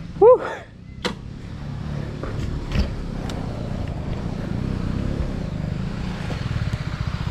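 Single-cylinder motorcycle engine running at low revs with a steady pulsing rumble that grows a little louder toward the end. A short, loud, rising-then-falling pitched cry comes about a third of a second in, and a few sharp knocks follow around one and three seconds in.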